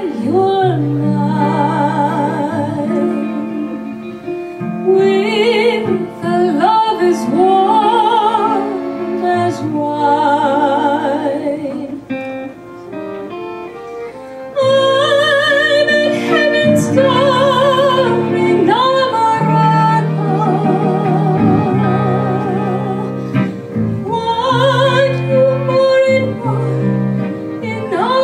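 A woman singing a ballad into a microphone with strong vibrato, accompanied by piano. It drops to a softer passage about twelve seconds in and swells fuller again about two seconds later.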